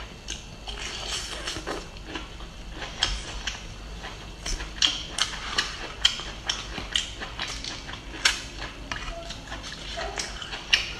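Close-up eating of a bamboo shoot: a run of crisp, crunchy bites and chewing.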